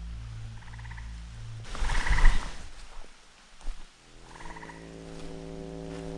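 A frog gives three short pulsed trills. Around two seconds in there is a louder burst of rustling with low thumps. From about four seconds a steady, humming drone with many overtones sets in.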